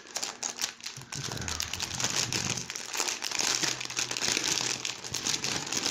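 Clear plastic bag crinkling and rustling as hands work it open and pull out the pads packed inside.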